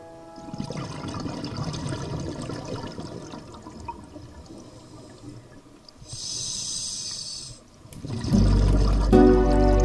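Scuba diver breathing underwater through a regulator: a long bubbling rush of exhaled air bubbles, then a hissing breath in. Music starts near the end.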